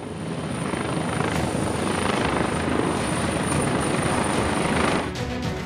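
Mi-17 military transport helicopter hovering low, its rotor and turbine noise running steadily with a thin high whine above it. About five seconds in, the sound cuts to music.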